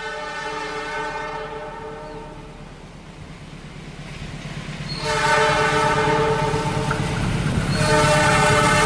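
Diesel locomotive's multi-tone horn sounding in three long blasts over the low rumble of a passing train. The first fades out about two and a half seconds in; the second, louder, starts about five seconds in, and the third follows after a short break near the end.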